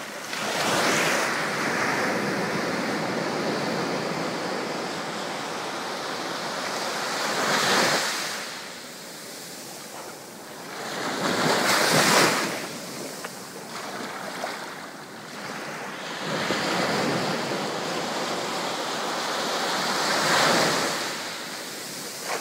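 Mediterranean surf washing in and out at the water's edge: a steady rush that swells with each incoming wave. The loudest surge comes about halfway through, with others about a third of the way in and near the end.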